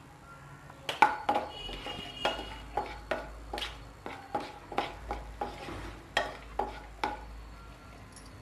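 Wooden spatula stirring whole spices in hot sesame oil in a nonstick kadai, knocking against the pan about twice a second, with a faint sizzle underneath.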